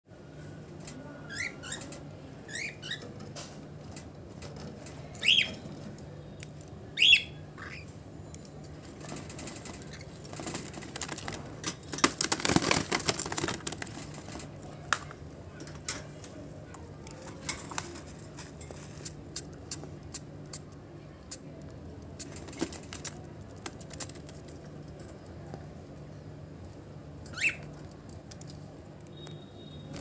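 Cockatiels giving short sweeping chirps, several in the first eight seconds and one more near the end. Around the middle comes a brief burst of rustling, and small sharp clicks are scattered throughout.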